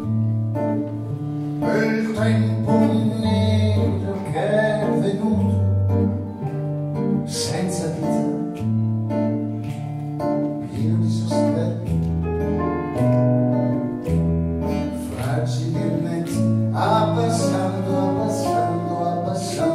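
Live small band playing: strummed acoustic guitar over held low notes that change every second or so, with a man singing and a saxophone.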